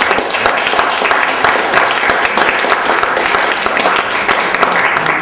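Audience applauding: a dense, even patter of many hands clapping that dies away right at the end.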